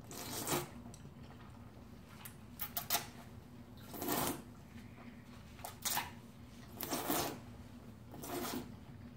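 Udon noodles being slurped in short noisy bursts, about six of them with brief pauses between.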